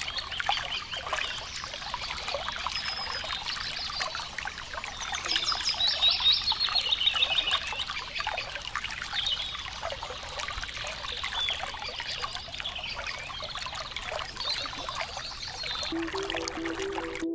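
Running water trickling and splashing with songbirds chirping and trilling over it. Music with steady notes comes in just before the end.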